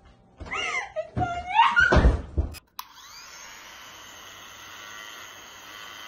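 Loud laughing voices, cut off sharply about two and a half seconds in. Then electric hair clippers run with a steady buzz.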